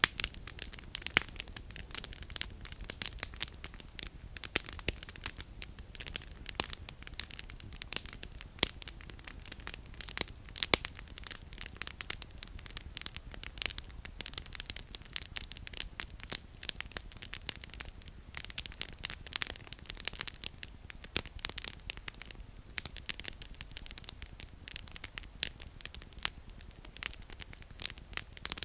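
Wood campfire crackling: a dense, irregular run of sharp pops and snaps from burning firewood, with a few louder cracks in the first half.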